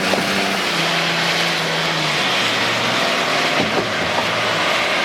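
Car driving at speed: steady road and wind noise with a low engine hum that drops in pitch about two seconds in, and a few light knocks a little past the middle.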